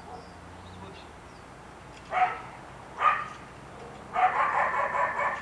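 A dog barking: two single barks about a second apart, then a quick run of barks near the end.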